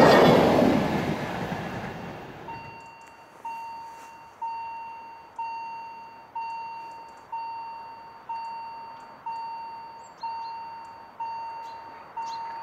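A passing passenger train fades out over the first couple of seconds. After that a level-crossing warning bell rings about once a second, each stroke a clear tone that dies away.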